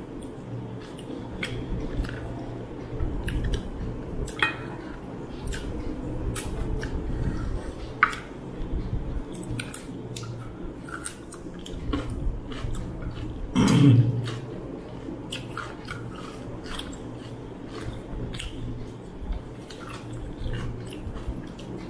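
Close-up chewing and mouth sounds of people eating rice and mutton curry by hand, with frequent small clicks. One louder, low thump comes about two-thirds of the way through.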